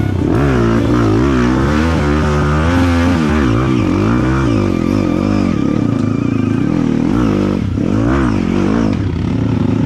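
Dirt bike engine revving up and down again and again as the throttle is worked on a rough trail, its pitch rising and falling every second or so.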